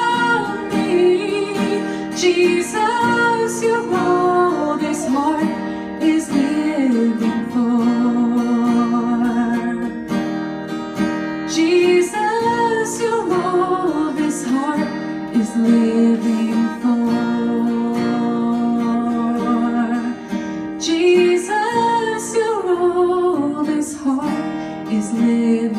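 Acoustic guitar strummed with a woman singing a slow worship song into a microphone, amplified through the room's sound system.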